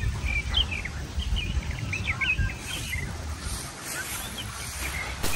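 Small birds chirping: many short, quick high calls, one after another, over a low rumble of wind on the microphone.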